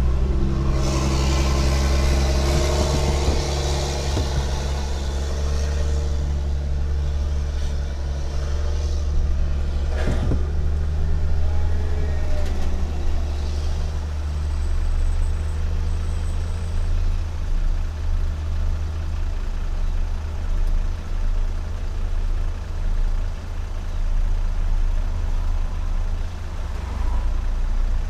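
Inside a moving car in city traffic: the steady low rumble of engine and road. Passing traffic is louder in the first few seconds, and there is one short thump about ten seconds in.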